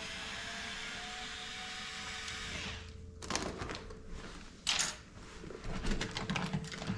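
Small power drill running steadily, its pitch rising slightly, then stopping about three seconds in. Light clicks and rattles of handling follow.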